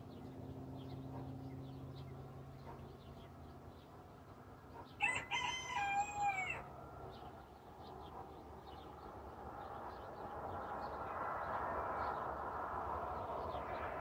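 A rooster crows once, about five seconds in: one call of under two seconds that ends on a falling note. Faint chirps of small birds come and go behind it.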